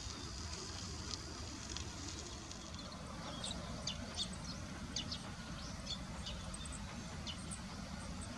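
Outdoor ambience: a steady low rumble with a faint high hiss. From about three seconds in come scattered short, high, irregular clicks.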